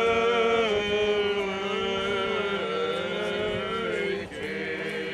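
Eastern Orthodox liturgical chant from the Theophany blessing of the waters. One voice draws each word out into long held notes that slide slowly between pitches, over a steady low held note (the ison). The upper voice breaks briefly about four seconds in.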